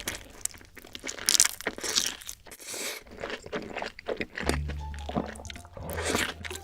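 A person biting and chewing crunchy food close to the microphone, with a cluster of sharp crunches about a second and a half in. Background music with a low bass line comes in after about four and a half seconds.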